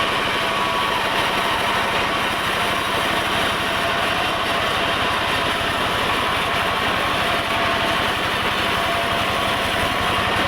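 Engine-driven sawmill running steadily, its engine firing in a fast even pulse under a steady mechanical whine.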